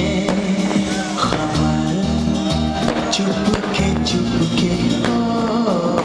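Hindi song playing: singing over music with a steady beat and a repeating bass line.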